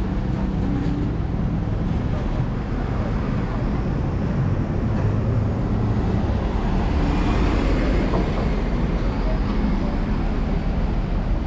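City street traffic: motor vehicles running past on the road, with a louder swell as one passes about seven to eight seconds in.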